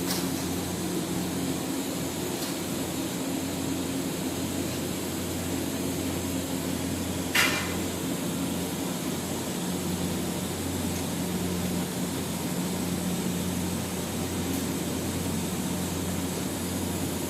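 Steady hum and hiss of TIG welding on a 2-inch sanitary stainless pipe butt joint, with one sharp click about seven seconds in.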